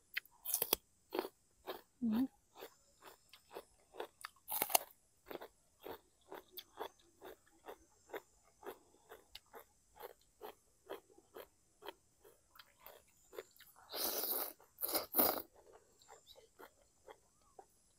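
Close-up chewing of a mouthful of raw bitter gourd: steady crisp crunches about two a second. Near the end come two louder, longer noisy bursts.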